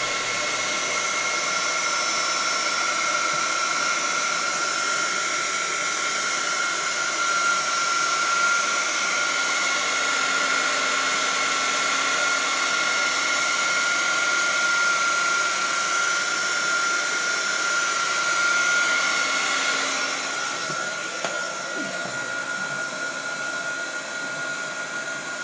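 Small handheld heat gun running steadily, its fan blowing with a steady whine, used to soften a cable's plastic jacket so it can be stripped. It gets a little quieter in the last few seconds.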